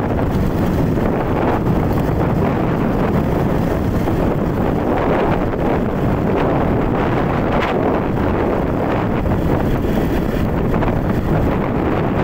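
Steady, loud wind noise buffeting the microphone while riding along a road, with road and vehicle noise underneath.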